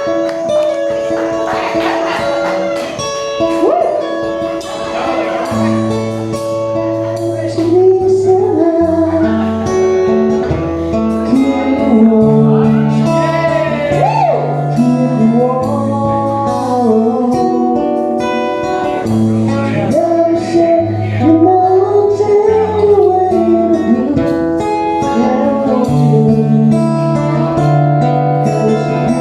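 A live band playing a song: a singer holding long, wavering notes over guitar chords and a bass line.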